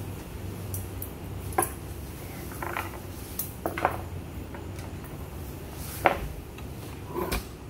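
Grooming scissors snipping and clinking in a few short, scattered metallic clicks, the sharpest about six seconds in, over a steady low hum.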